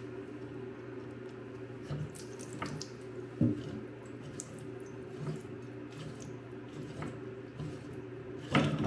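Water trickling and dripping at the opened shower valve, with a few light knocks.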